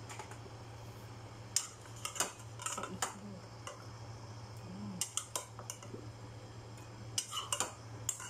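A metal spoon clinks against a bowl as fried shrimp are stirred and scooped, giving scattered sharp clinks in small clusters. A steady low hum runs underneath.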